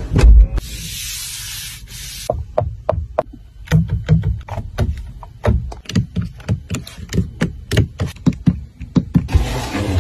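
A thump and about a second of hiss, then a long run of light, irregular clicks and taps from fingers working a Mercedes S-Class's door switches, trim and console lid. The clicks come faster in the second half.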